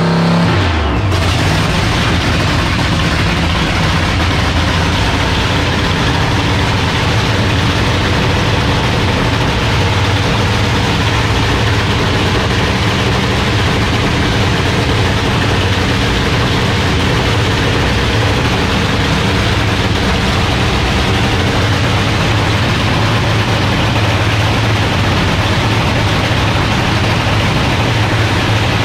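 Supercharged nitro-burning drag-racing V8 idling steadily during a pit warm-up.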